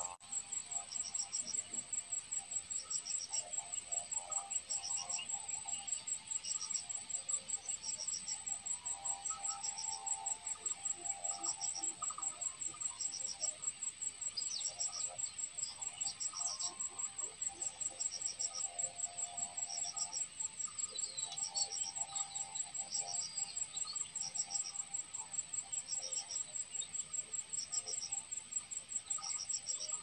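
Crickets chirping: a steady high trill with a short chirp repeating about once a second, and faint lower calls scattered through.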